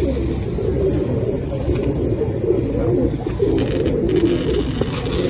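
A flock of domestic pigeons cooing, many overlapping coos at once.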